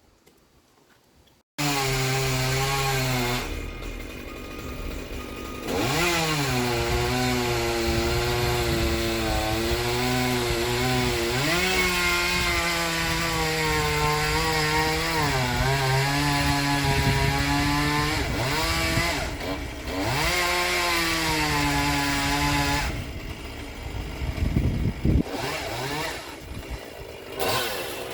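Two-stroke chainsaw starting abruptly about a second and a half in, running at high revs. Its pitch dips and recovers several times as the chain bites into the silver maple's wood. Near the end it drops off to a lower, uneven running.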